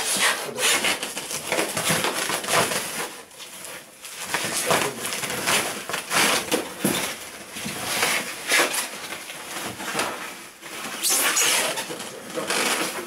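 Plastic wrapping crinkling and rustling in irregular bursts as an outboard motor is gripped and shifted in its cardboard box and foam packing.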